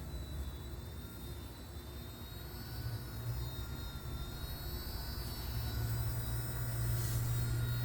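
A Firefox C129 micro RC helicopter in flight: a high electric motor whine that wavers slightly in pitch, over a low steady rotor drone that grows louder about halfway through.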